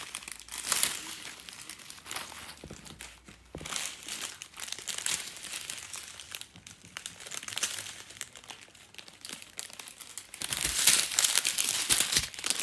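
Small plastic zip-lock bags of diamond-painting rhinestones crinkling as they are picked up and moved, in irregular bursts, loudest near the end.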